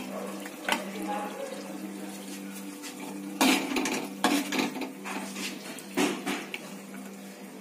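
Metal spoon clinking and scraping against a steel kadhai and a plate as chicken korma is served. A few sharp clinks come through, the loudest about three and a half seconds in, over a steady low hum.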